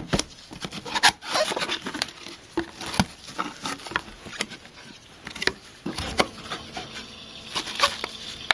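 Cardboard box and packaging being opened and handled by hand: irregular taps, clicks and rustling, with a few sharper knocks about a second in, at three seconds and near the end.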